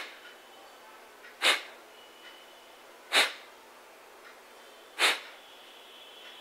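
Kapalbhati breathing at the slow beginner pace: short, sharp, forceful exhalations puffed out through the nose, about one every 1.7 seconds.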